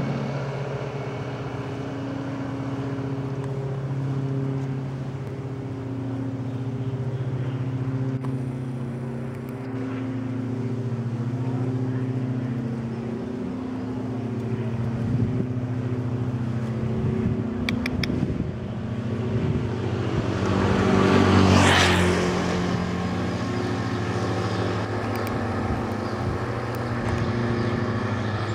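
A vehicle engine running with a steady low hum whose pitch shifts a little now and then, and a vehicle passing close by about three quarters of the way through, swelling up and fading away as the loudest moment.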